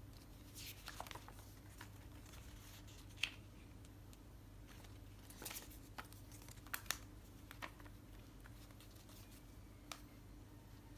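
Faint handling sounds of unboxing: scattered light clicks and brief rustles of packaging and a small plastic case, a few sharper clicks near the middle, over a faint steady hum.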